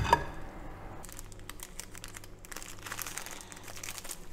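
A brief knock right at the start, then faint, irregular crinkling and crackling of plastic as it is handled.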